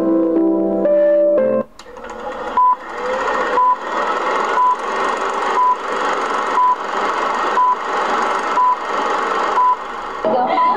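Keyboard or organ chords end about a second and a half in. A film-leader countdown effect follows: a short beep once a second, nine in all, over a steady hiss and crackle.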